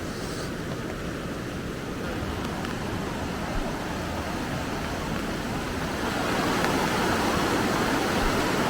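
Steady rush of fast-flowing river water, growing louder about six seconds in.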